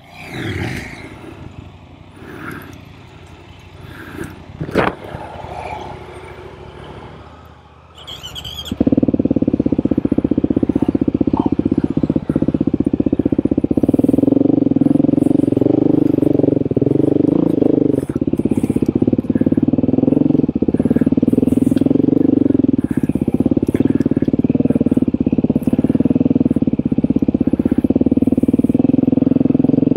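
Off-road motorcycle engine running steadily under way, loud and close, coming in suddenly about nine seconds in after a quieter, mixed opening.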